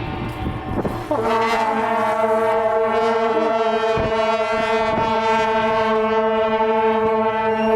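A horn sounding one long, steady note that starts about a second in and holds without a break.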